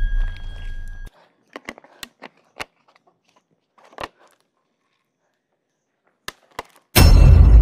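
Music fades out, then scattered sharp clicks and crackles of a plastic water bottle being handled and its cap twisted open, with a small cluster of clicks about four seconds in. A loud sound heavy in bass cuts in suddenly near the end.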